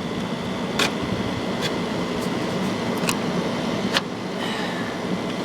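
1991 Friedrich Quietmaster 12,000 BTU window air conditioner running on high: a steady rush of air from the fan over a low hum, with a few short sharp clicks.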